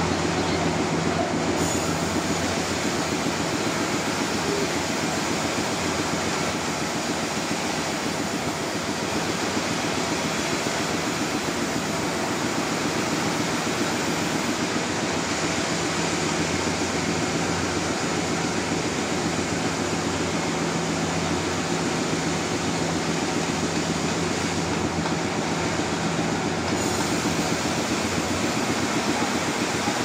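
Sawmill saw running steadily through a large trembesi (rain tree) log, a continuous loud rasp over a steady machine hum. The high hiss of the cut shifts in strength a couple of times, about a second and a half in and again around the middle.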